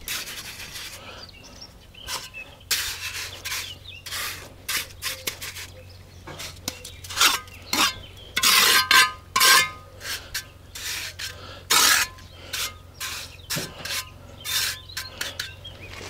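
Irregular short scrapes and rasps of a mason's trowel and mortar against hollow concrete blocks, loudest about halfway through, over a faint steady low hum.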